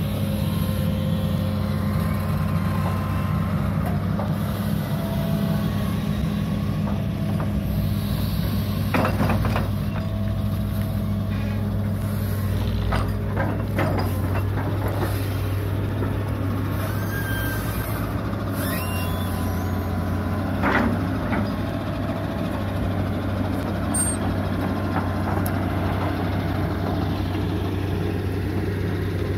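Hitachi UH083 long-arm excavator's diesel engine running steadily under load, with whining hydraulics that shift in pitch as the boom and bucket move. A few short knocks come from the bucket working the ditch bank.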